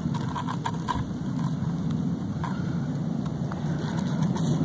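Steady low rumbling noise with a few faint clicks and ticks scattered through it.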